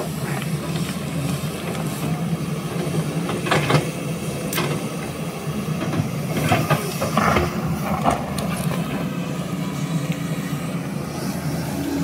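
LiuGong hydraulic excavator's diesel engine running steadily under load as it digs and swings, with several short knocks and scrapes from the bucket working the soil and stones.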